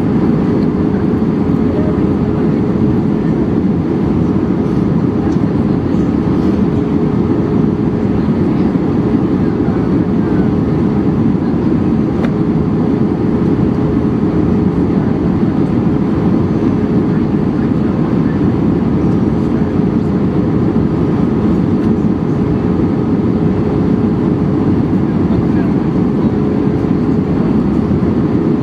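Steady in-flight cabin noise of an Airbus A320-232 airliner: airflow rush and engine drone, with a steady hum running underneath.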